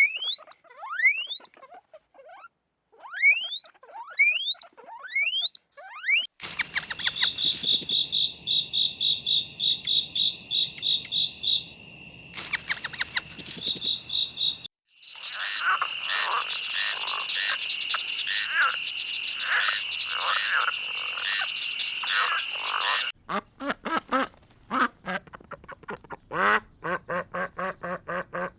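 A run of different animal calls: repeated short rising chirps, then from about six seconds a dense chorus of pulsing trills lasting some sixteen seconds, changing character midway, then quick repeated calls near the end.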